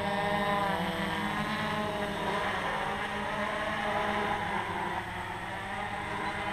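Hexacopter's six NTM 2826 1000kv brushless motors spinning 9x4.7 Gemfan propellers in a whirring hover. The pitch of the whine wavers up and down as the motor speeds keep changing.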